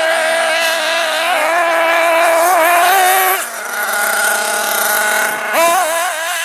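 Small nitro engine of an RC truggy screaming at high revs, dropping off throttle about three and a half seconds in, then revving sharply back up near the end.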